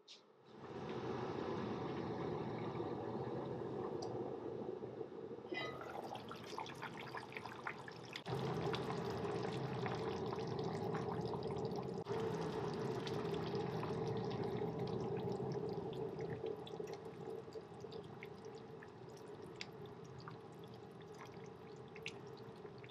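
Thick tomato stew bubbling in an enamelled cast-iron pot, a steady run of small pops and gurgles.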